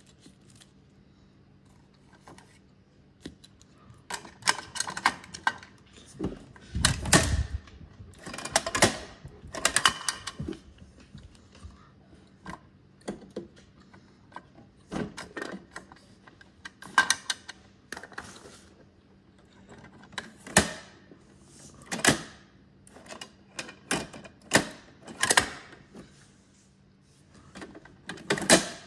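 Irregular small clicks, taps and plastic rustles as little tied plastic trash bags are picked up and set down on a wooden floor beside a toy garbage truck, in two busy spells with quiet between.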